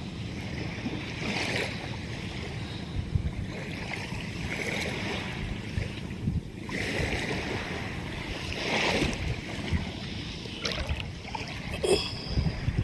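Small waves washing onto the beach, the wash swelling every couple of seconds, under wind rumbling on the microphone.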